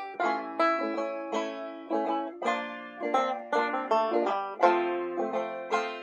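Background music: a plucked banjo tune, quick notes each struck and dying away, with a country or bluegrass feel.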